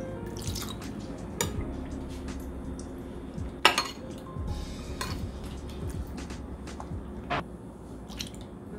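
Kitchen dishes and utensils clinking and knocking now and then, with one sharper knock about four seconds in, over soft background music.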